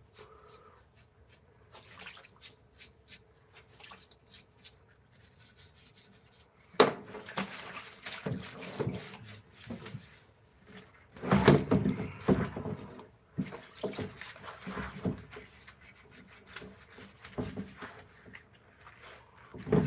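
Irregular knocks, clatter and scraping of objects being handled, starting about a third of the way in, loudest in the middle and thinning out near the end.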